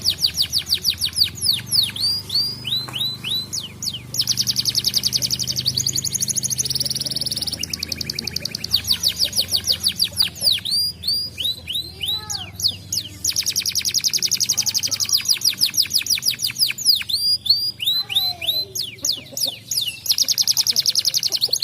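Domestic canary singing: long, very rapid trills alternate with runs of quick down-slurred whistled notes, repeating in phrases.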